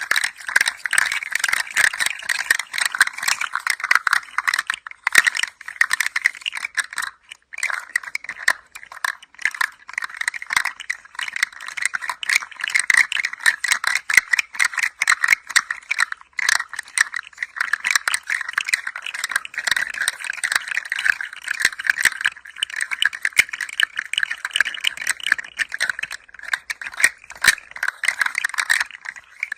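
A handheld toy rattling as it is gently moved: a dense, continuous stream of small clicks, with two brief pauses about five and seven seconds in.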